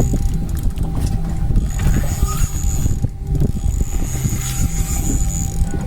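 Boat engine running steadily: a low, continuous rumble with a thin steady tone over it.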